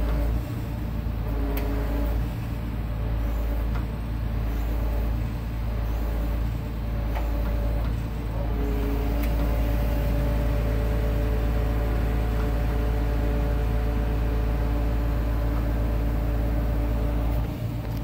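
Crane truck's diesel engine running steadily to drive the hydraulic crane as it lifts a load, a low drone with steady whining tones that shift about halfway through.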